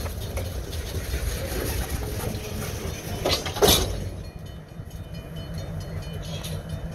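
Freight boxcars rolling slowly on the rails with a low rumble, then a short loud burst of noise about three and a half seconds in as the cars come to a stop. After that a steady low hum remains.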